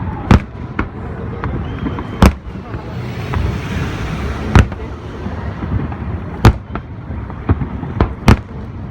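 Fireworks display: aerial shells bursting one after another, with loud sharp bangs about every two seconds, smaller pops between them, and a continuous rumble. A hiss rises in the middle.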